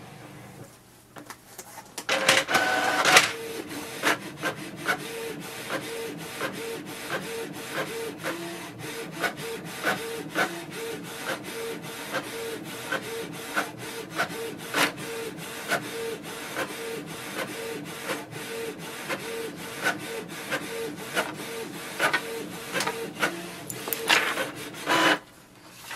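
Canon PIXMA MG2524 inkjet printer printing a page. After a quiet couple of seconds it pulls the paper in with a brief loud whir. It then makes a long, regular series of clicks and whirs as the print head passes back and forth, and stops about a second before the end.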